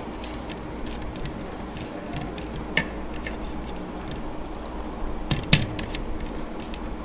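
Fingers scraping and picking up the last grains of rice from a plate, with a few sharp clicks and taps on the plate, the loudest about five and a half seconds in, over a steady low hum.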